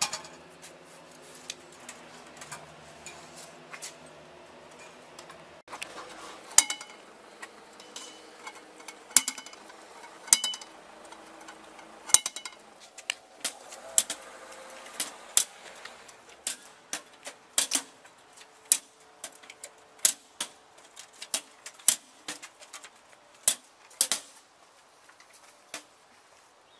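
Metal letterbox flaps on a bank of apartment mailboxes clacking as business cards are pushed through the slots one after another. The clacks are sharp and metallic, some ringing briefly, and come irregularly about once a second after the first few seconds.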